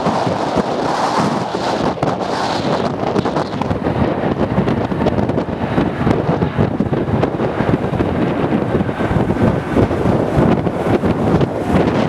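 Strong wind buffeting the microphone, over the rumble of a rear-engined jet airliner on its landing roll.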